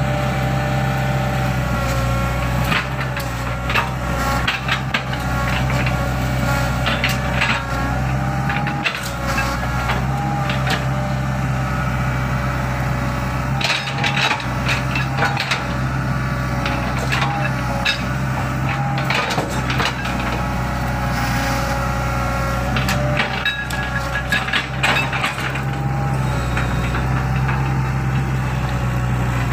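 Hydraulic excavator's diesel engine running steadily, with repeated knocks and clanks from the machine at work.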